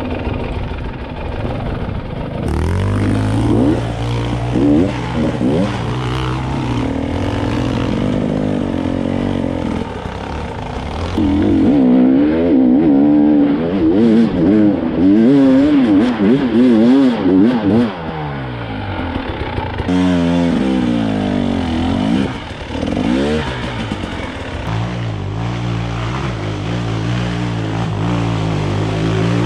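KTM 300 EXC TPI two-stroke enduro motorcycle engine being ridden hard on a rough trail. Its pitch rises and falls over and over with the throttle, in quick bursts of revving, loudest in the middle.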